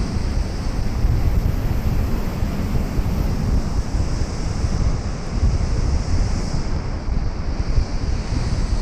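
Ocean surf breaking on a sandy beach, a steady wash of hiss, with wind buffeting the microphone as a heavy low rumble.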